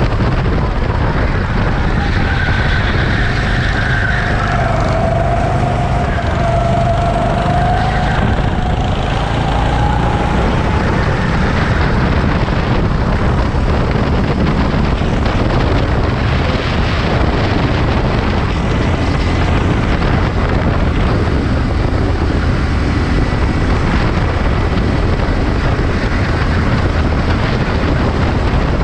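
Wind buffeting the microphone: a loud, steady rumble, with a faint wavering tone about 4 to 10 seconds in.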